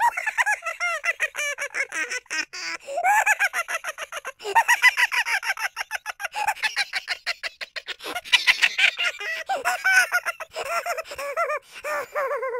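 Cartoon sound effects: a fast, continuous run of short, high-pitched honking squawks, several a second, with sharp clicks between them.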